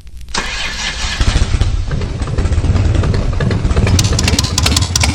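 Harley-Davidson Shovelhead V-twin motorcycle engine starting up and running with an uneven, loping beat.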